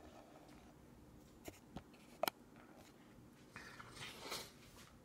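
Quiet room with a few light clicks and taps of a baby's plastic spoon against her bowl, the sharpest a double click a little over two seconds in, then a soft scraping rustle about four seconds in.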